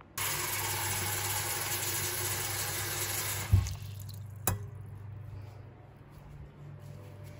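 Kitchen tap running into a stainless steel bowl, filling it with water. The flow starts suddenly and stops after about three and a half seconds with a heavy knock, and a sharp click follows about a second later.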